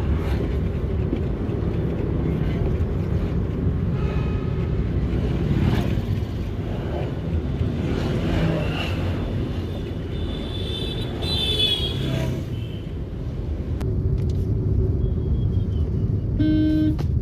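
Cabin sound of a Maruti Suzuki WagonR on a test drive: steady engine and road rumble. A few brief higher-pitched tones sit over it, the last near the end.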